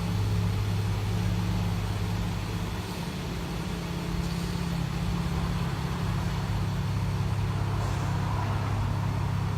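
Porsche 991 Carrera GTS flat-six idling steadily through its Akrapovic titanium exhaust: a constant low hum.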